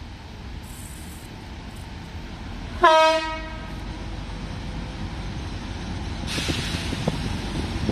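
A train horn sounds one short, loud blast about three seconds in. Near the end the rushing noise of an approaching train starts and builds.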